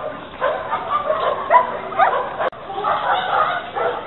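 Several dogs barking and yelping in short, overlapping barks, with quick high yelps in the middle and a sudden brief break about two and a half seconds in.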